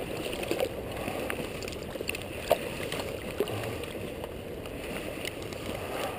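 River water lapping and gurgling close to the microphone, with scattered small clicks and one sharper tick about two and a half seconds in.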